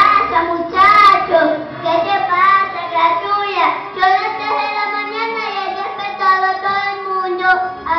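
A child singing solo into a microphone, holding and bending long notes.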